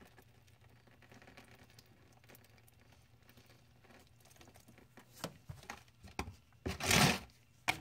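Handling noises from rubber-gloved hands working a plastic fuel-line quick-connect fitting: soft rustling, a few small clicks about five seconds in, then a loud scraping rustle about seven seconds in and a sharp click just before the end.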